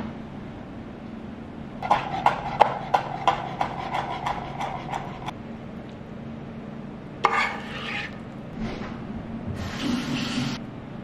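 Kitchen utensils on ceramic bowls while dinner is served: a run of about ten sharp clinks with a short ring, then a single scrape and a brief rustle near the end. A steady low hum runs underneath.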